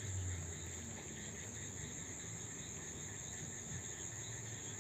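Steady high-pitched chorus of field insects trilling without a break, with a low hum beneath that is strongest in the first second.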